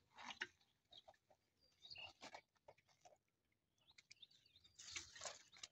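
Faint rustling, dripping and handling of a wet blue mesh net on a bamboo frame, as small fish and weed are picked out of it. Birds chirp briefly in the background, about two seconds in and again around four seconds in.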